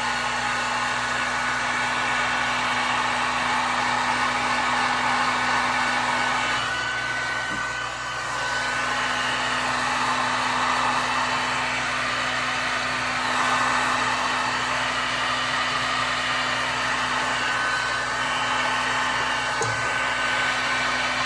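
Electric heat gun running steadily, its fan blowing hot air with a constant motor hum under the rush of air, shrinking heat-shrink tubing over a soldered battery cable connector.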